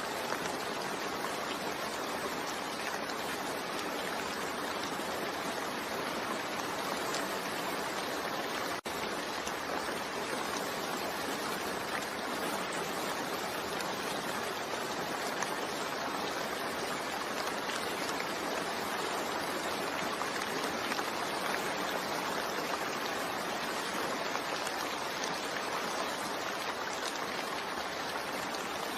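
Steady heavy rain, an even continuous hiss with no distinct drops standing out, broken by a momentary dropout about nine seconds in.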